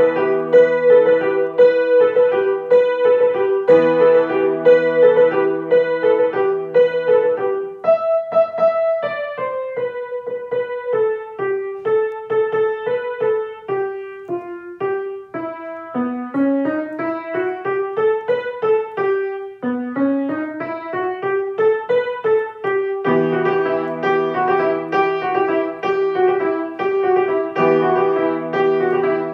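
Grand piano being played: repeated chords, then a single-note melody that climbs in two rising runs in the middle, and the chords return for the last few seconds.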